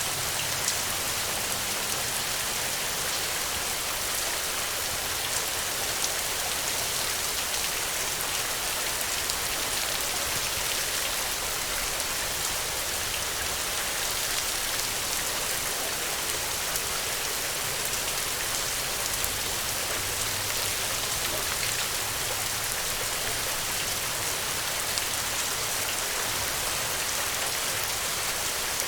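Steady rain falling on the ground, a dense even hiss of many fine drop ticks.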